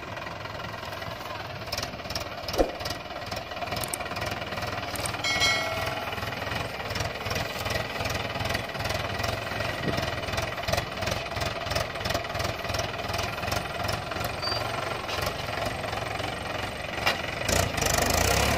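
Mahindra 575 DI tractor's four-cylinder diesel engine running under load as the tractor drives over soft, muddy ground, a steady rhythmic chugging clatter. A single sharp knock about two and a half seconds in.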